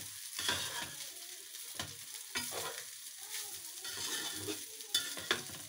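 Metal spatula scraping and knocking irregularly in a wide metal pan as fried rice is gently stirred, over a steady sizzle of frying on high heat.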